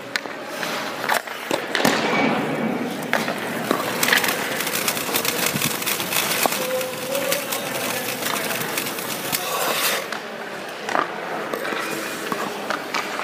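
Hockey skates scraping and gliding on rink ice, with many sharp clacks of stick and puck.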